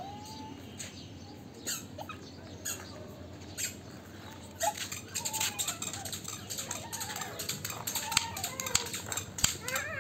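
Plastic toy vehicles being handled: irregular clicks and clatter, getting busier about halfway through.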